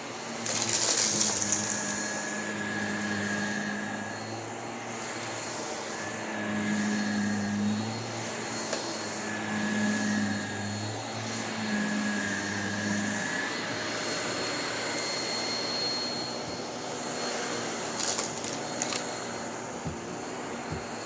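Upright vacuum cleaner running and pushed back and forth over the floor, its motor note rising and falling with each stroke. Short crackling rattles come about a second in and again near the end.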